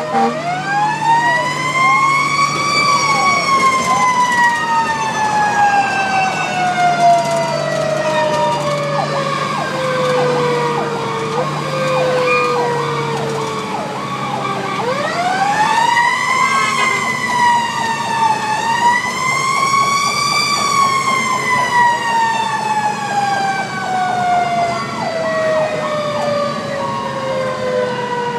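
Fire truck sirens, heard from inside the cab while it drives. One siren rises and then slowly falls over about ten seconds. About halfway through it winds up again, rises twice and slowly falls once more, with shorter, quicker wails over it. The truck's engine hums underneath.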